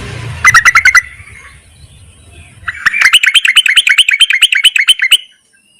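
Female yellow-vented bulbul (trucukan) calling to males: a short burst of rapid, chattering notes, then after a pause a longer run of about two and a half seconds of fast repeated notes.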